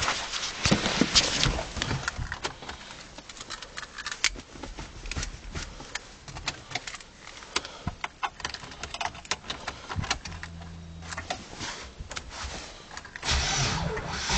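Scattered irregular clicks and rattles, with a brief low hum about ten seconds in; near the end a starter begins cranking the Subaru EJ22E 2.2-litre flat-four engine.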